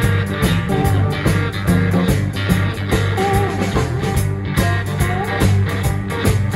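Live blues-rock band playing: two electric guitars play lead lines together over electric bass and drums, with a few bent notes sliding up.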